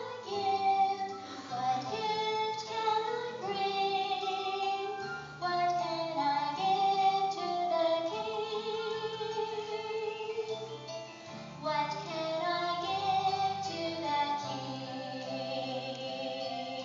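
Women's vocal ensemble singing together in parts, a sung melody moving note to note over steady held low notes.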